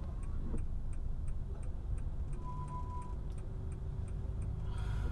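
A car's turn-signal indicator ticking steadily, about three ticks a second, heard inside the cabin over the low rumble of the engine and tyres.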